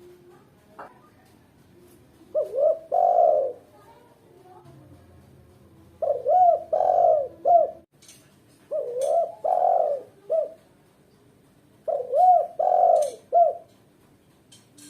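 Female spotted dove cooing: four phrases of a few short, rising-and-falling coo notes, repeated every three to four seconds. It is the female's call to a male in breeding condition.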